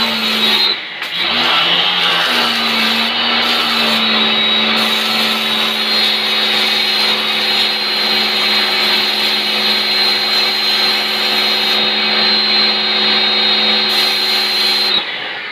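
Yojimbo 1400 W electric pressure washer running under load while its wand sprays water: a steady motor-and-pump hum with a high whine over the hiss of the jet. It dips briefly about a second in and winds down with a falling whine near the end.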